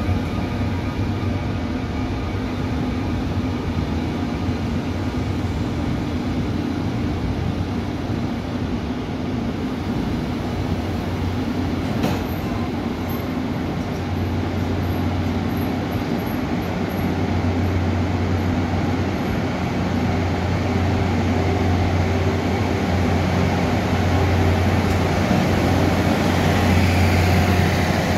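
Mugunghwa-ho passenger train moving slowly through the station, coaches rolling past over the rails. A diesel locomotive's steady engine hum grows louder as it draws near, with a single sharp click about twelve seconds in and a faint thin squeal for a few seconds after it.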